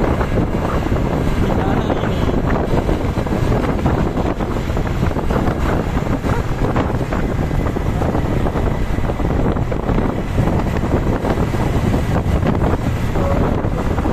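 Steady, heavy wind buffeting the microphone over a low rumble of passing traffic; no horn can be made out.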